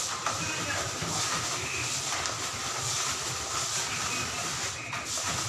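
A bare hand rubbing and mixing brown sugar with margarine in a plastic basin: a steady gritty scraping hiss of sugar grains against the basin.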